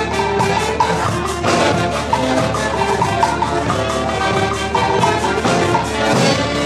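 Latin American dance music with percussion and a steady beat, instruments carrying a melody.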